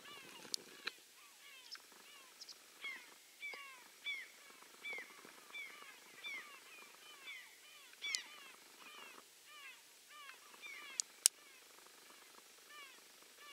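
A large flock of wild geese calling: a continuous chorus of short, arched, overlapping calls from many birds. A few sharp clicks cut in, the loudest about eleven seconds in.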